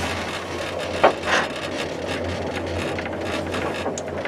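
Electric train coasting with power off, heard from the driving cab: a steady low hum and running noise with creaks and knocks from the cab, and one sharp click about a second in.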